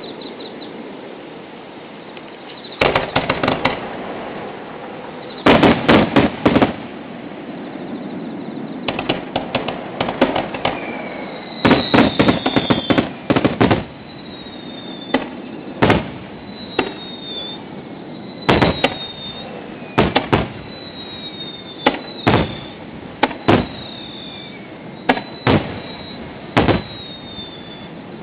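Aerial fireworks display: clusters of bursts in the first half, then single bangs about every second or so, with high whistling glides between them.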